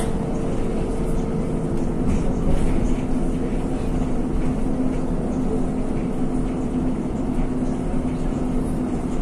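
Cabin noise of a NefAZ 5299 city bus under way: steady engine drone and road noise, with a low hum holding one pitch.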